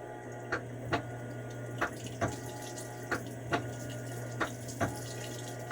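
Whirlpool washing machine trickling water into its tub while it shows a fill cycle: a thin run of water with scattered soft ticks over a steady low hum. It is barely filling, a faulty fill that the owner has been waiting on.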